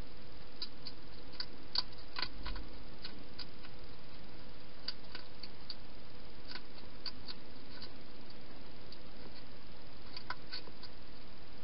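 Wild hedgehog eating from a bowl inside a plastic feeding box: irregular small clicks of chewing and bowl contact, coming in short clusters, over a steady background hiss.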